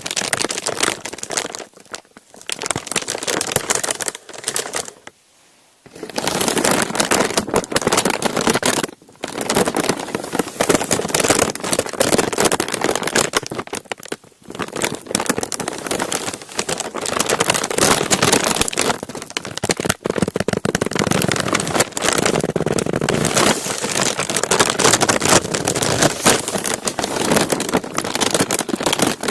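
A thin crinkly sheet being crumpled and crinkled in dense crackling runs, broken by a few short pauses, the longest about five seconds in.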